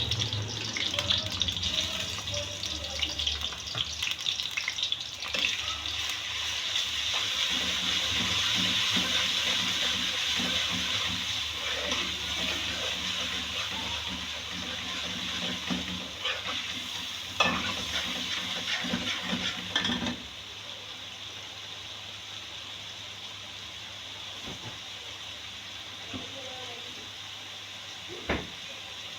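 Garlic-ginger paste and whole spices sizzling in hot ghee while being stirred, with a few knocks against the pan. The sizzle drops sharply about twenty seconds in and stays low after that.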